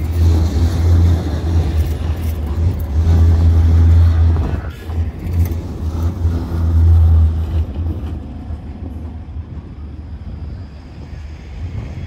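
Bombardier Flexity Outlook low-floor tram passing close by: a deep running hum with steel wheels on rail, loudest in the first seven seconds, then fading as it pulls away.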